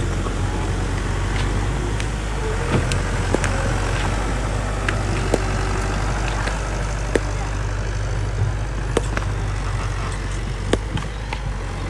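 Bulldozer's diesel engine running steadily under load, with scattered sharp clanks and clicks from the tracks and stones while it pushes dirt.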